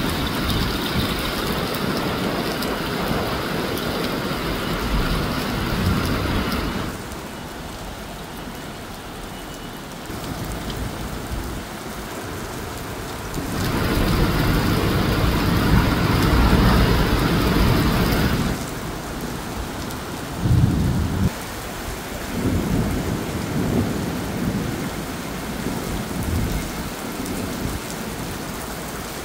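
Steady rain with long rolling thunder rumbling through it, swelling and fading in waves, with a sharper, louder burst of thunder about twenty seconds in.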